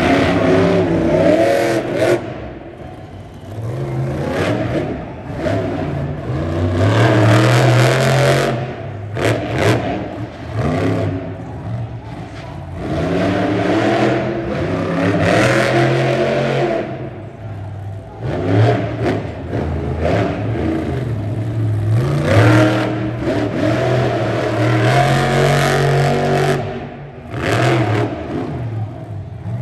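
Monster truck's supercharged V8 engines revving hard, their pitch rising and falling over and over as the throttle is opened and closed, with a few short sharp knocks in between.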